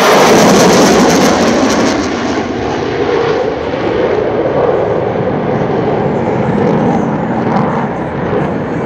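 Jet noise from a US Navy EA-18G Growler's two turbofan engines at high power as it flies past. It is loudest and crackling in the first two seconds, then settles into a lower, steadier rumble.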